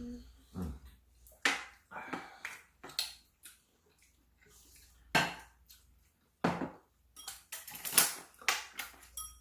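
Cutlery and dishes clinking and knocking in irregular, separate strikes, busier near the end, where some of the clinks ring briefly.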